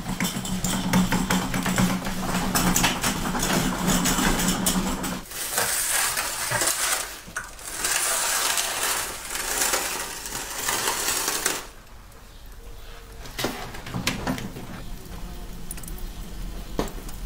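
Crumpled aluminium foil crinkling and a metal roasting tray scraping and clinking as a foil-wrapped whole lamb is slid into a brick oven. The dense crackle is loudest through the middle, then drops off about twelve seconds in to a quieter stretch with a few sharp clinks.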